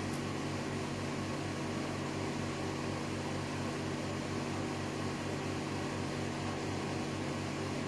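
TIG welder arc running steadily on aluminium, using 4043 filler rod: an even electrical buzz with a hiss over it.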